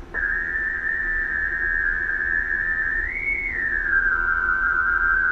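A steady heterodyne whistle from an unmodulated carrier heard through an HF ham transceiver's receiver on sideband. It starts suddenly, bends up in pitch briefly about three seconds in, then settles slightly lower and holds.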